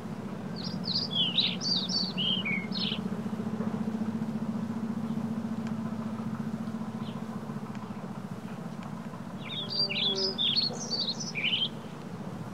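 A songbird singing two short phrases of quick, varied chirping notes, about nine seconds apart, over the steady low hum of the moving e-bike.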